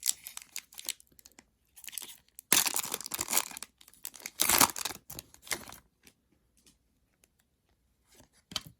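Trading card pack wrapper being torn open and crinkled, in several noisy bursts, the loudest about two and a half and four and a half seconds in, then a few soft clicks and rustles.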